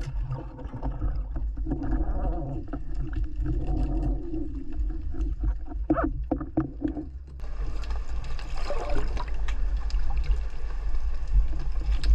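Underwater camera audio: a steady low rumble of water, with a few clicks and knocks as the speargun and its line are handled. About halfway through it turns to a broader hissing wash of water as the diver nears the surface.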